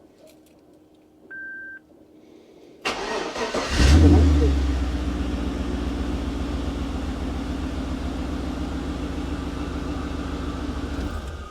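A short beep, then a Holden VT Commodore V8 cranks, catches with a brief rev and settles into a steady idle for about seven seconds before being switched off. This is the first start after a fresh oil and filter change, run briefly to circulate the new oil.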